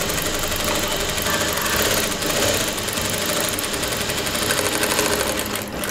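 Industrial single-needle lockstitch sewing machine running steadily at speed, stitching a plain seam through two layers of fabric.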